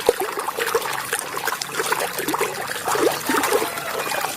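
Water trickling and splashing in quick, irregular spatters as a muddy toy excavator is washed.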